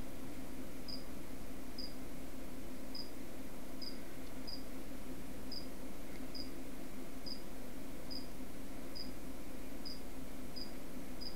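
Short high-pitched chirps, about one a second, over a steady low hum.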